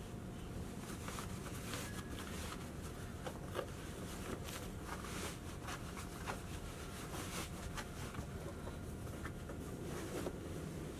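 Steady low background rumble with a faint steady hum and scattered faint clicks and ticks throughout.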